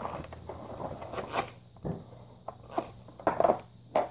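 Irregular scraping, rustling and clicking of objects being handled, with sharper knocks at about one, two and four seconds in.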